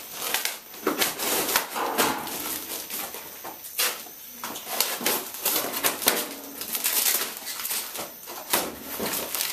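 Cardboard and plastic stretch wrap rustling, crinkling and tearing as a large shipping box is pulled open by hand, with scattered sharp cracks and knocks.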